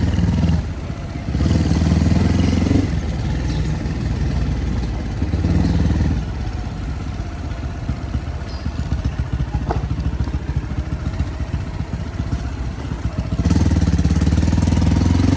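Motorcycle engine running while under way. The throttle opens in several surges of a second or two, the longest near the end, and eases off between them.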